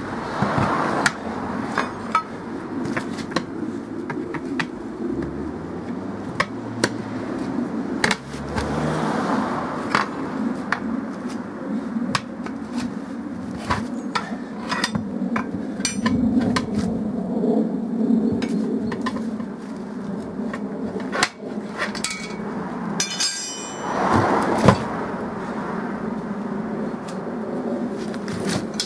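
Steel tyre levers knocking and clinking against a Series Land Rover steel wheel rim as the tyre bead is levered over it: many irregular metallic clanks and taps, with a brief ringing rattle a little after 22 s and again near 23 s.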